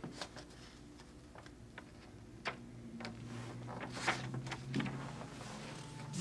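Quiet room tone with a low steady hum that grows louder about halfway through, and scattered small clicks and knocks.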